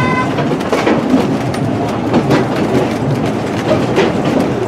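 Two-foot-gauge passenger train rolling along, its wheels clicking over the rail joints at irregular intervals over a steady running rumble. A horn note cuts off just after the start.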